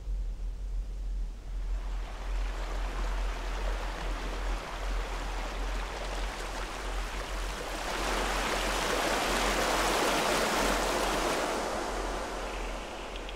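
Water running and splashing over a rock cascade in a stream. It comes in about two seconds in, swells louder for a few seconds and dies away near the end.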